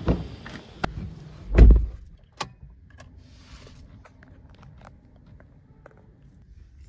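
A car door shut with a heavy, dull thump about a second and a half in, among lighter clicks and knocks inside the car's cabin; after that, only faint ticks over a low background hum.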